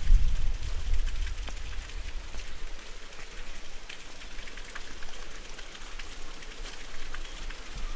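Rain falling, with many small drops ticking on surfaces. A low rumble, loudest at the start, dies away over the first two seconds.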